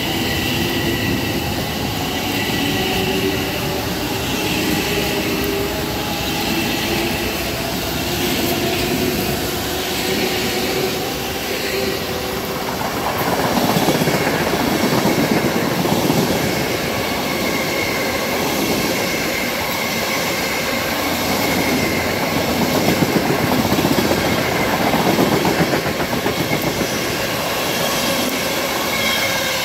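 Long Island Rail Road electric multiple-unit trains moving through the station: a steady whine of the traction motors at first, then, from about halfway, louder wheel-on-rail noise with a rhythmic clickety-clack as cars roll past close by.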